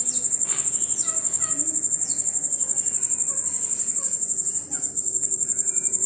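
Soft chattering calls and short falling whistles from rose-ringed parakeets, under a loud, steady, high-pitched pulsing trill.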